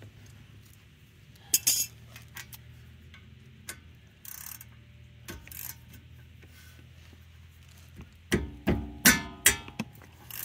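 Brake caliper bolt screeching as it breaks loose under a ratchet: a run of short, high squeals near the end, from a bolt held by thread locker. About a second and a half in, sharp metal clinks of the tool on the bolt.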